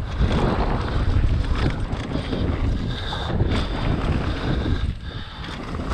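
Wind buffeting the microphone over the rumble and clatter of an enduro mountain bike descending a dirt trail at speed.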